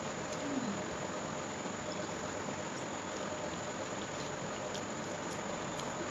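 Steady background hiss with a few faint clicks of eating: chewing and a spoon against a plate.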